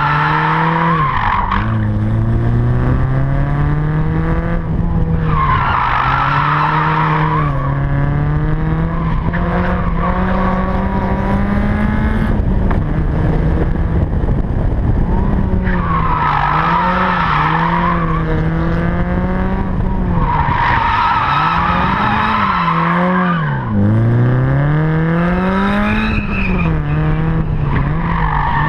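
Small car's engine revving up and down under hard driving, with its tyres squealing in repeated bursts of a second or two as the car slides through the corners, smoking its tyres.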